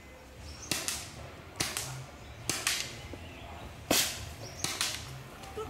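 Air-powered game guns firing single shots: about nine sharp pops, spaced irregularly, some in quick pairs.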